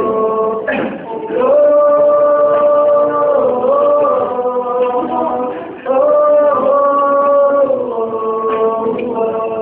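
A male voice singing a slow melody of long held notes that glide from one pitch to the next.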